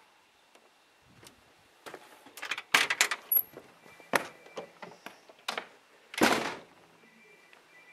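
A door being opened and handled: a run of sharp knocks and clicks, most of them clustered about three seconds in, and a longer thud about six seconds in.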